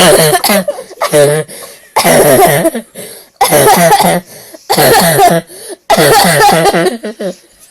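A person in a violent coughing fit: about six loud bouts of harsh, repeated coughs, run together with helpless laughing.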